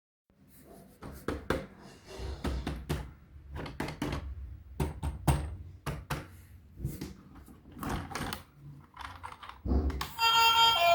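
Irregular clicks, knocks and rustles of toys and their packaging being handled at close range. Background music starts near the end.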